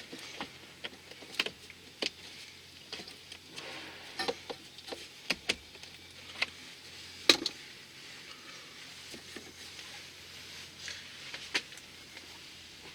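Irregular light clicks and knocks of hand work on parts, about a dozen scattered through, the loudest about seven seconds in, over a faint steady low hum.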